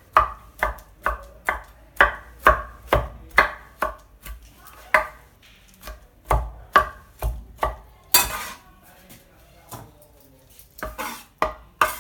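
Cleaver chopping cooked broccoli on a wooden chopping board: quick, regular knocks about two a second, thinning out after about four seconds. There is one longer, hissier sound a little past the middle and a few more knocks near the end.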